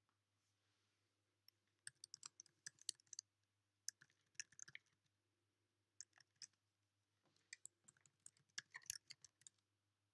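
Faint clicking of computer keyboard keys, typed in quick runs with short pauses.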